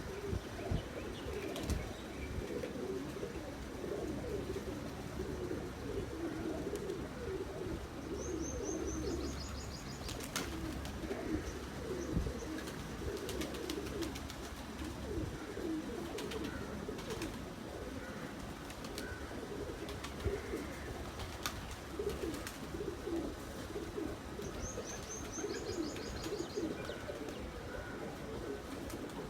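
Several young high flyer pigeons cooing continuously in an overlapping low murmur. A short run of high chirps comes twice, and there are occasional clicks.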